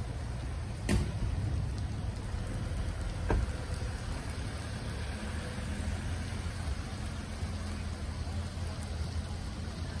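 Steady low engine hum, with two short clicks about one and three seconds in.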